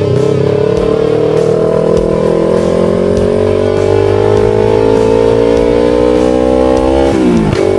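Yamaha R3's parallel-twin engine pulling through a gear, its pitch climbing slowly for about seven seconds. Near the end the revs drop sharply as the throttle closes for an upshift, then the engine picks up again at a lower pitch.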